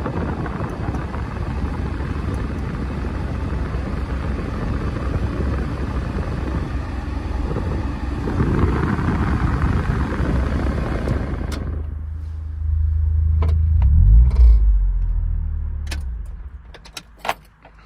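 Honda Vamos 660 cc turbo engine running, a steady low hum under a wash of noise that drops away about twelve seconds in, leaving a fading low rumble and a few clicks near the end.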